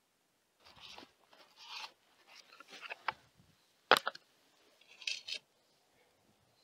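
Wood rubbing and scraping as a small timber block is handled in gloved hands against a squared beam, in a few short bursts. One sharp wooden knock about four seconds in, the loudest sound, as the block comes down on the beam.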